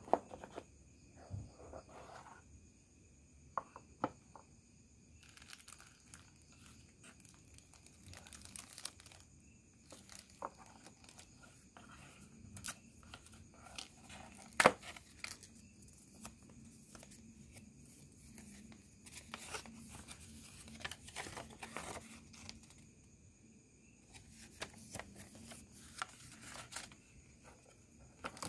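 Cardboard box and paper packaging being opened and handled: rustling and crinkling of paper, cardboard and a plastic bag, with scattered sharp clicks and knocks, the loudest a little under halfway through.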